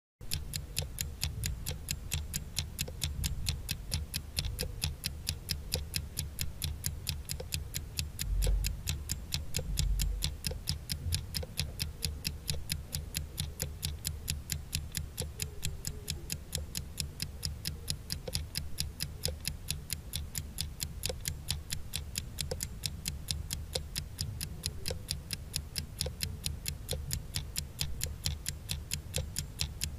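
Countdown-timer sound effect: a clock ticking fast and evenly, without a break.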